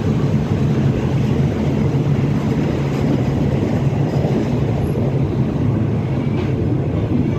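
Steady rumble of a passenger train carriage rolling slowly into a station, heard at an open window.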